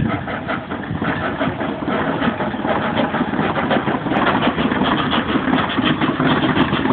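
Vertical-boiler steam locomotive "Coffee Pot" working, its exhaust puffing in a quick, even rhythm and growing a little louder.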